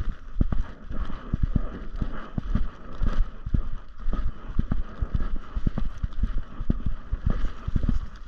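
Footsteps on a dirt forest trail, heard as a run of low thumps about twice a second through a body-worn camera, over a faint steady hiss.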